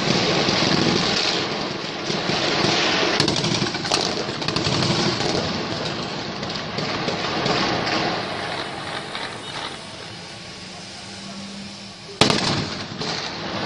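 Heavy gunfire from an urban firefight: dense, overlapping shots crackling almost without pause, thinning out after about nine seconds. About twelve seconds in, one sharp loud bang, the loudest sound, rings out and dies away.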